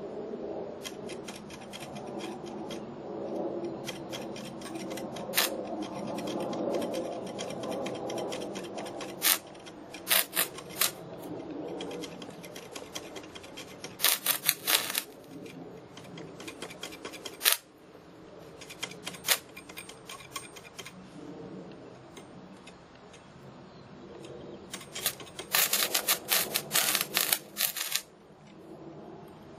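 Stick-welding arc run off two 12 V lead-acid batteries in series (24 V), crackling and sputtering in short, separate bursts as the electrode is struck against the steel. The longest, loudest run of crackle comes near the end. At 24 V the arc is weak and gives little spark.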